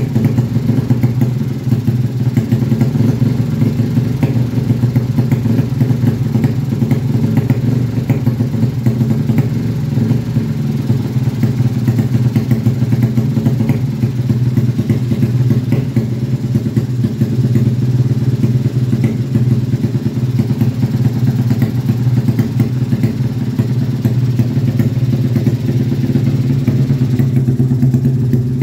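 Modified 200cc single-cylinder four-stroke underbone motorcycle engine running steadily on a stand, its pitch holding level without big revs.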